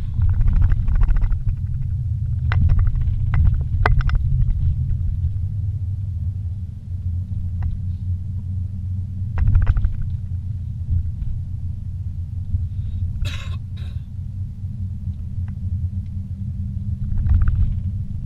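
Car driving slowly, heard from inside the cabin: a steady low rumble of engine and tyres on the road, with occasional knocks and rattles, the sharpest a short clatter about two-thirds of the way through.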